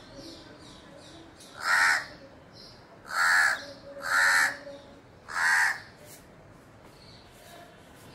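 House crow cawing four times, each call about half a second long, with the second and third close together.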